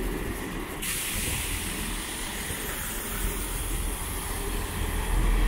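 A pair of Class 158 diesel multiple units running past at a station, with a low, steady rumble. A steady hiss starts suddenly about a second in and carries on.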